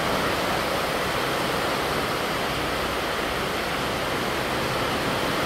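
A steady, even rushing noise without a break.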